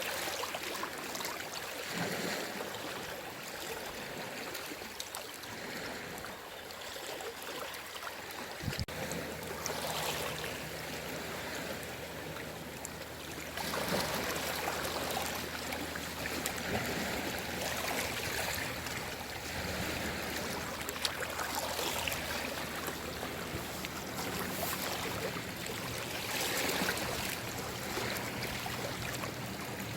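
Small waves of a calm sea washing ashore: a continuous rush of surf that swells and falls back every few seconds.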